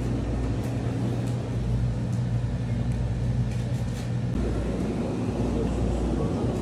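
Steady low hum of running supermarket refrigeration, the chest freezers' cooling units.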